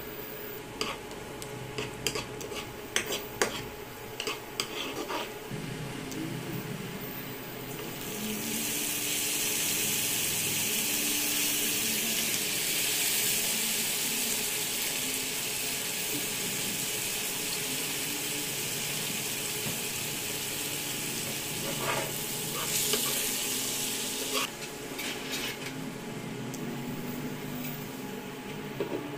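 A spatula clicking and scraping in a nonstick wok of garlic frying in butter, then a loud sizzle about eight seconds in as raw shrimp fry in the hot butter, which stops suddenly after about sixteen seconds. More spatula clicks follow, and a glass lid goes on the wok near the end.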